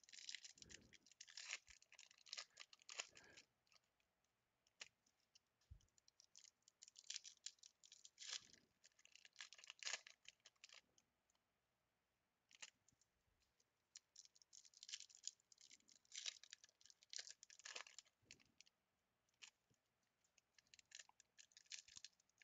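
Wrappers of baseball card packs being torn open and crinkled by hand, in about four bouts of crackling with short quiet pauses between.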